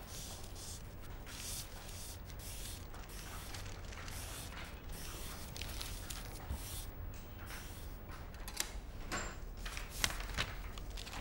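Tissue scrubbing across the keys of a desk calculator in repeated strokes, a dry rustling rub. A few sharp clicks come near the end.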